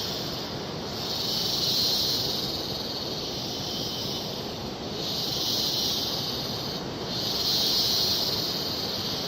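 Steady rushing of a large waterfall, with a high hissing drone above it that swells and fades several times.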